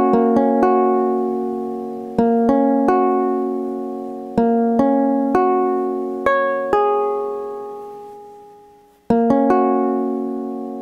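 Teenage Engineering OP-1 synthesizer played by hand: a series of chords, each struck and left to ring and fade. Near the end the sound dies away almost to nothing before a last pair of chords.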